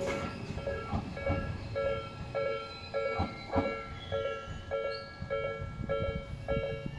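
Japanese railway level-crossing warning bell ringing in an even repeating electronic 'kan-kan', a little under two strikes a second. A few sharp clacks of train wheels crossing rail joints sound over it.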